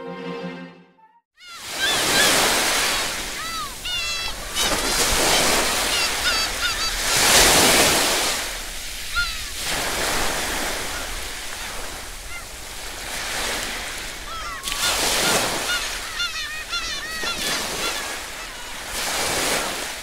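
Sea surf washing and breaking against a rocky shore in repeated loud surges, with birds calling over it in short, curved calls. The closing music ends about a second in.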